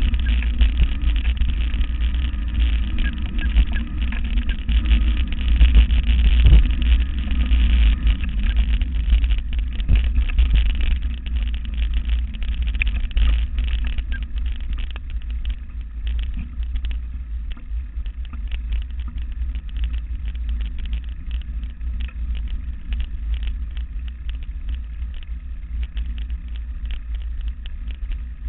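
Mountain bike towed by sled dogs (bikejoring) rolling fast over a dirt forest trail: a steady low rumble with many small rattles and knocks from the bumpy ground, louder for the first ten seconds or so and then easing a little.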